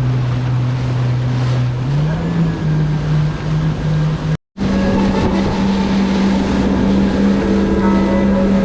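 Jet ski engine running at cruising speed over a rush of water and wind noise; its pitch steps up about two seconds in, the sound drops out for a split second near the middle, and it carries on at a higher, steady note.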